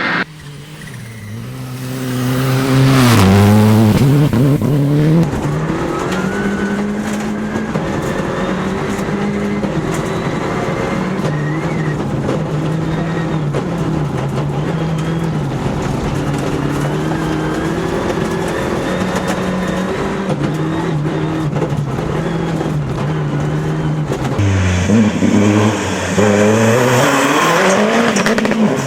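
Rally car engine driven hard, revs falling and climbing again a few seconds in and near the end, running steadily between.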